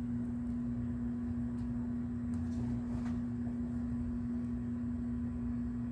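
A steady low hum holding one unchanging pitch, over a faint low rumble, with a few faint clicks.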